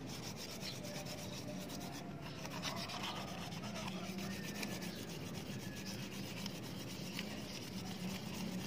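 Fine 1000-grit sandpaper rubbing by hand over a Honda Beat scooter's metal gear case cover: a faint, steady scratchy rubbing as the dirty alloy surface is sanded down before polishing.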